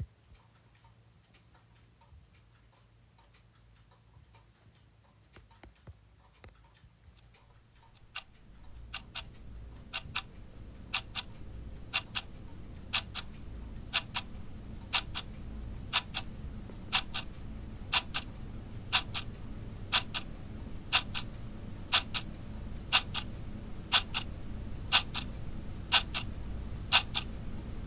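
Wall clock ticking about once a second: faint at first, then much louder from about eight seconds in, over a low steady rumble.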